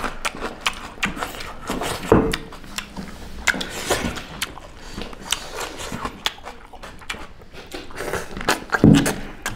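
Close-up eating sounds of two people eating rice with duck curry by hand: wet chewing and lip smacking in quick, irregular clicks, with hands mixing rice on the plates.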